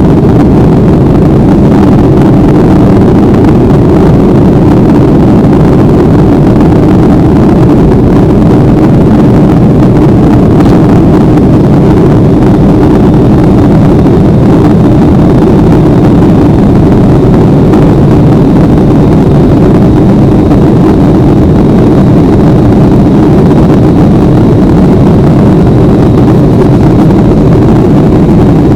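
Steady, loud drone of a passenger plane's engines and rushing air, heard from inside the cabin.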